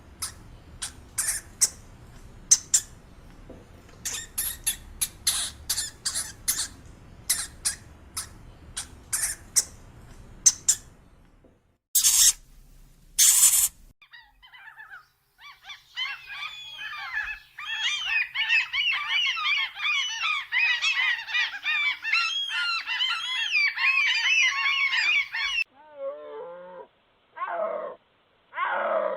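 A run of different animal calls: rapid short squeaks for about ten seconds, two loud harsh bursts, then a dense chorus of twittering calls that resembles a flock of birds, and near the end a few lower calls that fall in pitch.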